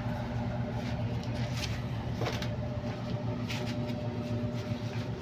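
Steady low mechanical hum from a running motor or machine, with a few soft knocks and rustles about one and a half, two and three and a half seconds in.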